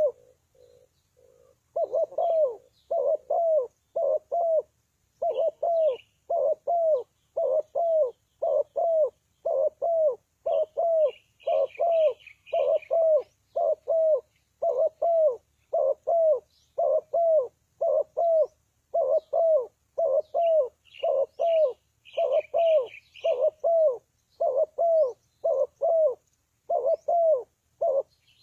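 Spotted dove cooing over and over: a steady, rhythmic run of short low coos, with a brief lull just after the start. Small birds chirp faintly now and then in the background.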